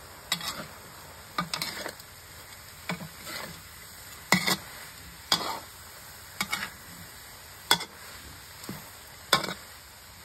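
Metal spatula scraping and turning minced meat in a wok, about one stroke a second, over a steady low sizzle as the meat dry-fries.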